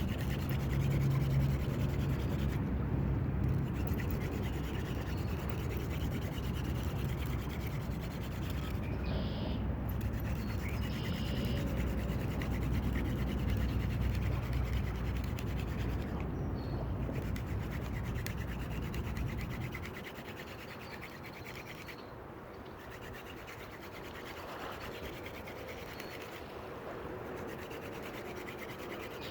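Hand drill fire-making: a wooden spindle spun between the palms, rubbing and grinding in the notch of a wooden hearth board to raise an ember, with short breaks every six seconds or so. A low rumble beneath it drops away about twenty seconds in.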